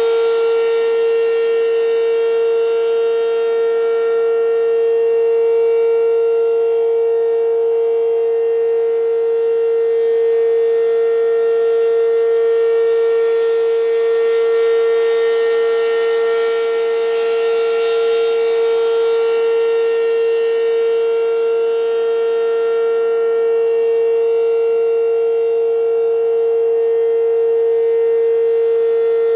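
American Signal RM-127 rotating mechanical warning siren sounding the steady Alert signal: one loud, unwavering tone whose brightness slowly swells and fades as the rotating horn sweeps past.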